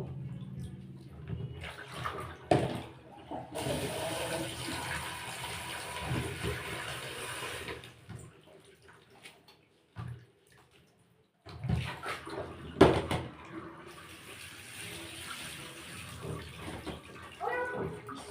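Water running from a tap into a basin, in two spells of a few seconds each, with sharp knocks and clatter of things being handled in between.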